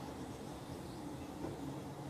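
Steady low background hum and hiss, with no distinct event.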